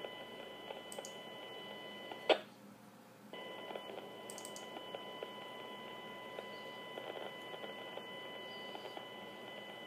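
Police-scanner live audio feed playing through a computer: a steady high electronic tone over static hiss with faint ticks. About two seconds in there is a sharp click, and the tone cuts out for about a second before it comes back.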